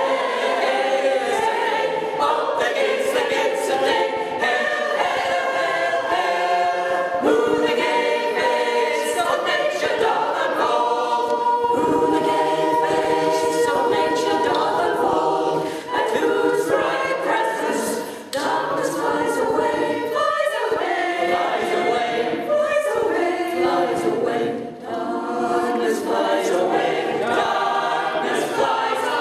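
Mixed choir of men's and women's voices singing unaccompanied in several parts, with brief breaks between phrases.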